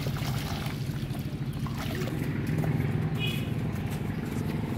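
Water pouring and splashing into a metal basin while a devil ray is washed in it, easing off after a couple of seconds, over a steady low mechanical hum. A short high chirp comes about three seconds in.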